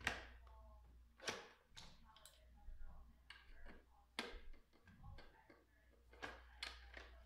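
Irregular sharp clicks and knocks of a screwdriver and small parts against the plastic housing of a Cuisinart DCG-20N being taken apart, about half a dozen in all, the loudest right at the start.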